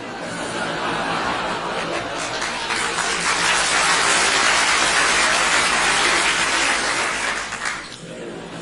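Studio audience laughing as for a sitcom laugh track: the laughter swells over the first three seconds, holds loud, then drops away suddenly near the end.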